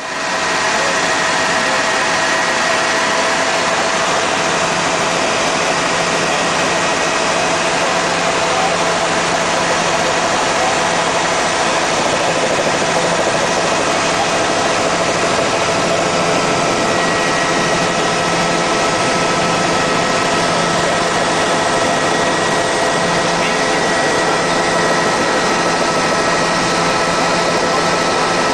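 Helicopter engine and rotor noise heard from aboard the aircraft: a steady, even rush with a few constant whining tones running through it.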